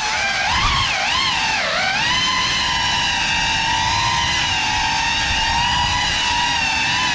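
Small FPV quadcopter's motors and propellers whining. The pitch swings up and down with the throttle for about the first two seconds, then holds steady.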